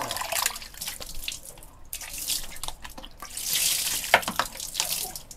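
Water running and splashing into a basin or sink, uneven, with a louder stretch a little past the middle.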